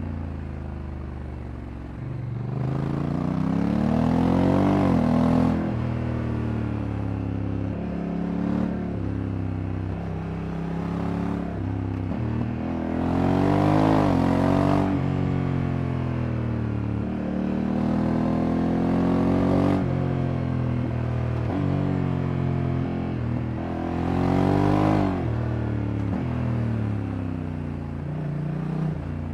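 Honda Africa Twin Adventure Sports' 1084 cc parallel-twin engine under way, with a DCT gearbox. It pulls up in pitch three times, and each climb ends in a sudden drop as the gearbox shifts up. Between the pulls it holds a steadier engine note.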